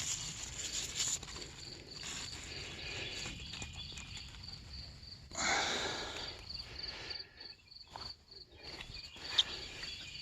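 Crickets chirping in a steady, rapid high-pitched pulse, with a brief rustle of footsteps through wet plants about five seconds in.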